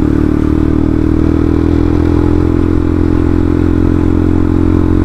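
Yamaha Byson FZ16's single-cylinder four-stroke engine, fitted with a Tiger carburettor, running steadily at a constant cruising speed.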